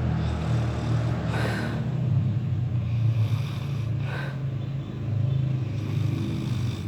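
A person snoring heavily: a deep, rattly rumble that runs on continuously, with two breathy rushes of air, about one and a half seconds in and again around four seconds in.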